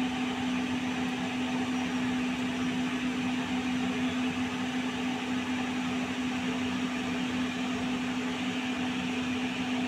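Steady hum of a running appliance motor: one steady low tone over an even hiss.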